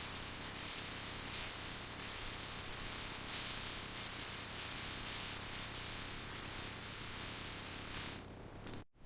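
Power sander working a car door panel, a steady hiss that cuts off about 8 seconds in.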